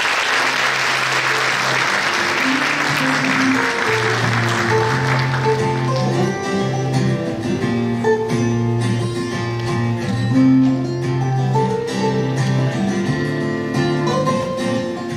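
Audience applause that fades out over the first five seconds or so, while instrumental music with a low bass line and a melody of separate notes comes in and plays on.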